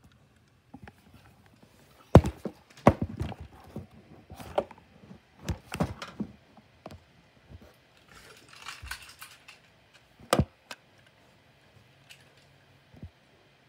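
A series of irregular knocks and clatters, the loudest about two seconds in and again near ten seconds in, with faint rustling between them.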